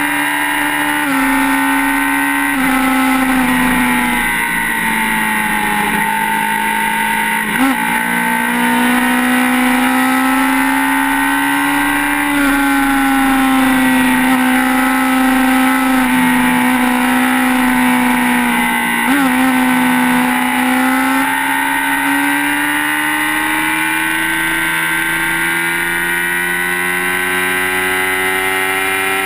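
Sport motorcycle engine running at steady high revs at highway speed. The pitch dips slightly a few times, with two short blips about 8 and 19 seconds in, and climbs slowly over the last several seconds as the bike speeds up.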